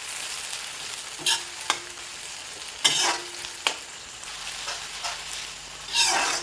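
Sliced onions frying in hot mustard oil in an iron kadhai, a steady sizzle, while a metal spatula scrapes and knocks against the pan several times, the longest stroke near the end.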